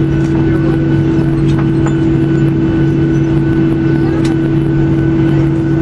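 Steady cabin drone of a Boeing 737-800 taxiing, its CFM56-7B engines at idle, heard as a low even hum with two steady deep tones and a fainter higher whine over a constant rush of air.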